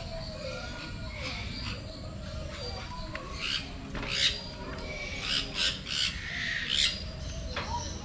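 Birds squawking: a series of harsh, loud calls, clustered from about three and a half to seven seconds in, over steady low background noise.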